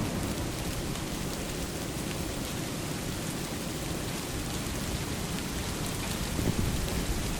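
Steady heavy rain falling on a lake's surface, a dense even hiss with a slightly louder swell about six seconds in.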